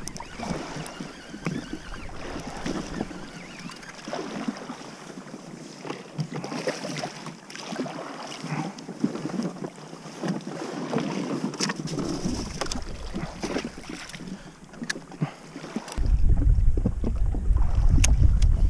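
Wind on the microphone and sea water lapping at the hull of a drifting jet ski, with scattered small clicks and knocks from fishing tackle being handled. A heavier low wind rumble sets in near the end.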